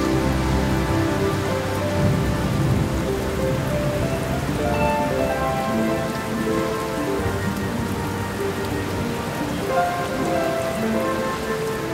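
Steady rain falling on hard paving, with soft background music of slow held notes underneath.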